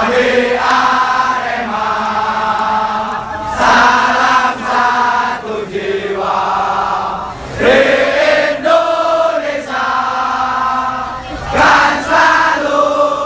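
A large crowd of football supporters chanting a song in unison, the phrases surging louder about every four seconds.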